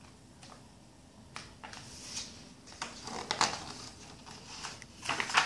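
Paper pages of a picture book rustling as they are handled and turned, a run of uneven rustles that grows busier after the first second and is loudest near the end.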